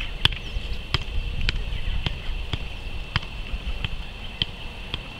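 A soccer ball kept up with the feet: a regular series of sharp taps of boot on ball, about two a second.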